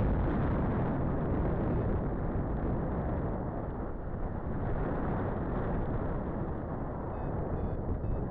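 Wind rushing over the microphone of a camera carried on a paraglider in flight: a steady, low buffeting rush with no let-up.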